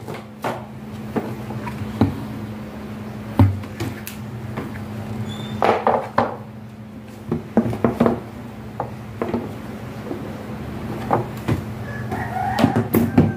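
Hard plastic cabinet panels knocking and clacking irregularly as they are lifted, shifted and set down on a tile floor, the loudest knock about three and a half seconds in, over a steady low hum. A chicken calls now and then in the background.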